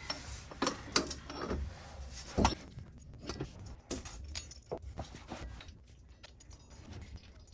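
Light metal clinks and taps of bolts and the drive shaft flange being handled as the bolts are threaded by hand into the rear pinion flange, with a sharper knock about two and a half seconds in.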